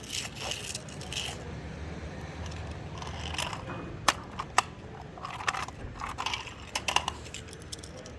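Small diecast toy vehicles and pebbles handled in sand: scattered crunching and scraping, with a few sharp clicks between about four and seven seconds in.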